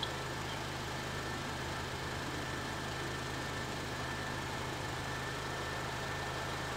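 2007 Acura TSX's 2.4-litre four-cylinder engine idling steadily when warmed up, breathing through an Injen cold air intake, heard from behind the car at the exhaust tips.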